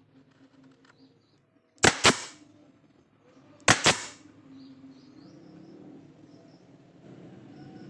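Four sharp knocks in two quick pairs, the second pair about two seconds after the first, as of something hard being struck.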